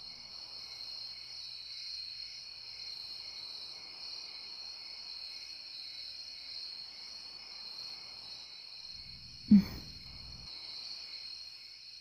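Crickets chirping in a steady, continuous trill, with one brief low thump about nine and a half seconds in.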